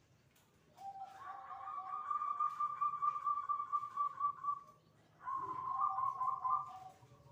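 Zebra dove (perkutut) singing its cooing song: two phrases of rapid rolling notes, a long one and then a shorter one after a brief pause.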